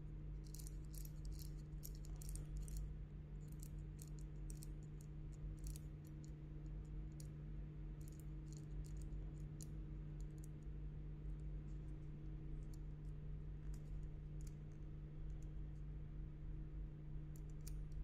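Number wheels of a Pacsafe Prosafe 1000 TSA combination padlock rolled by thumb, clicking through the digits while a new combination is dialled in. The clicks come in quick runs in the first few seconds, then more sparsely, over a low steady hum.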